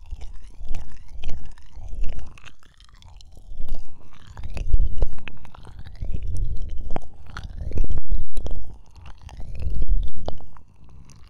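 Close-up ASMR ear-massage sounds on the microphone: rubbing and scratching with many scattered clicks and several strong low rumbling surges.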